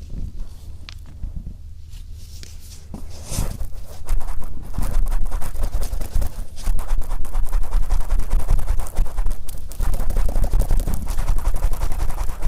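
Oil-wet cotton swab rubbing over the outer ear of a binaural microphone: close, dense scratching and crackling, softer at first and louder from about four seconds in.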